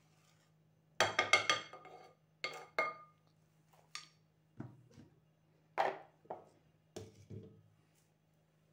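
Glass kitchenware being handled: clinks and knocks as a glass bowl and a glass blender jar and its lid are moved and set down on a tile floor. About ten sharp knocks come in small clusters, some ringing briefly, the loudest cluster about a second in, over a faint steady hum.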